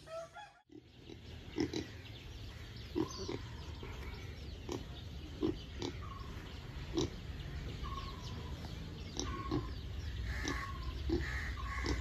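Pigs grunting in short, repeated grunts about once a second, with short high peeps in between.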